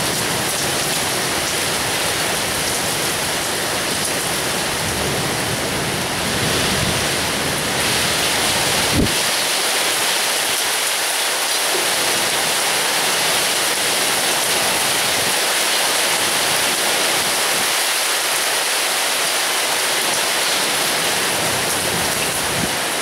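Heavy thunderstorm rain pouring down steadily, a dense even hiss of a summer cloudburst. A single sharp click about nine seconds in.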